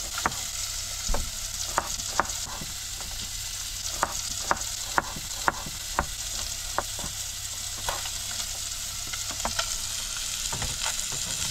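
Red pigfish fillets searing in hot coconut oil, a steady sizzle. Over it come sharp, irregular taps of a knife on a plastic cutting board as an onion is chopped, a dozen or so, stopping about nine seconds in.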